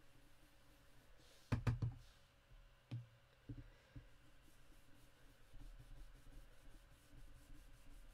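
A few light taps and knocks on a desk as a small ink applier is dabbed onto card, with a quick cluster about a second and a half in and single taps near three and four seconds.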